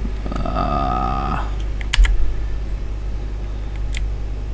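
Computer keyboard typing a terminal command, scattered key clicks. A brief wavering tone sounds about half a second in.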